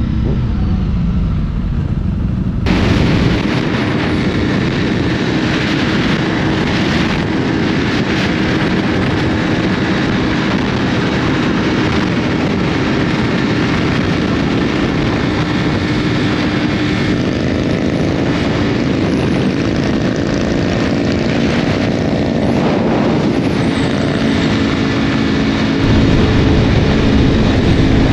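Sport motorcycle running at speed with heavy wind noise, its engine pitch rising and falling as the throttle and gears change. The first couple of seconds sound duller and deeper before the sound opens up.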